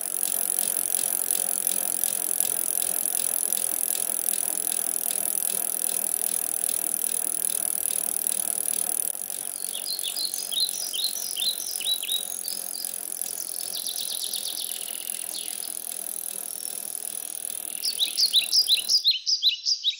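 Several bicycles ridden along a paved path, with a steady sound throughout. Short bright chirps come in about halfway, and near the end a rapid run of loud bicycle-bell rings as the riders come close, cut off suddenly.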